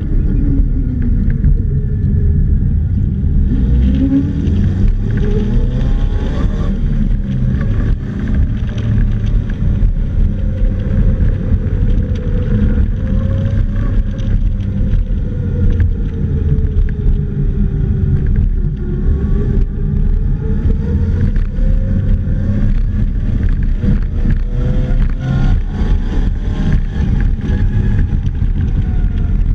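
Polaris Slingshot's four-cylinder engine driven around an autocross course, heard from the open cockpit. Its pitch rises and falls again and again as the driver accelerates and lifts through the turns.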